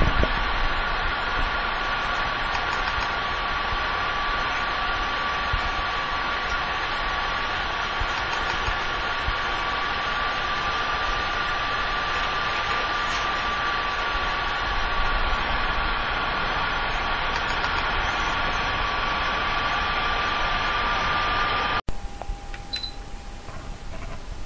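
An electrical appliance's motor running steadily: a constant rushing noise with a high, steady whine. It cuts off abruptly near the end.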